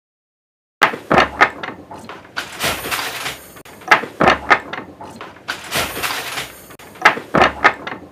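Wooden handloom clacking in a steady working rhythm, starting about a second in: a heavy thud about every second and a half with two or three lighter, sharp clacks between each.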